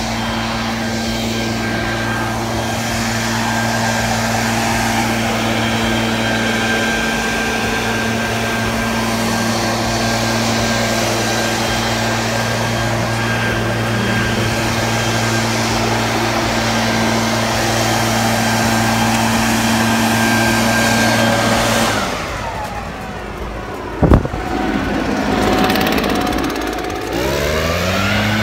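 Small petrol engine running steadily at high speed. About three-quarters of the way through it slows and falls in pitch, there is a single sharp click, and then it revs back up to the same steady note.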